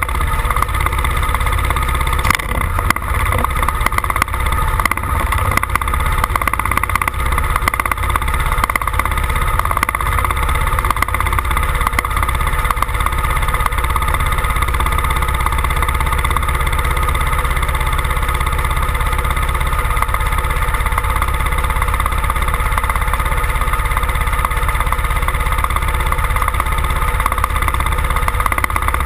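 Pulling tractor's engine running steadily at idle while hitched to the pulling sled, before the pull. A few sharp clicks sound in the first several seconds.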